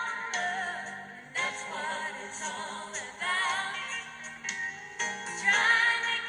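A southern gospel song: a family vocal group singing together in harmony over a band accompaniment.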